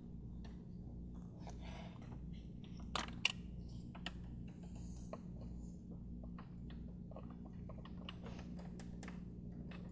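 Faint clicks and light scraping as a gloved hand works a mounting bolt into the top hole of a VW 2.5L five-cylinder's vacuum pump, with two sharper clicks about three seconds in. A steady low hum runs underneath.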